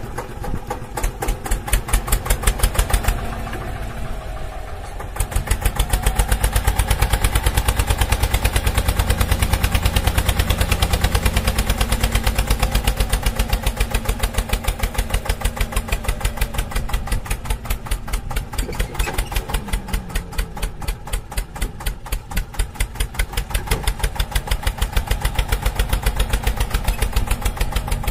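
Tractor engine running with a rapid, even chugging beat. It drops quieter for a moment about three to five seconds in.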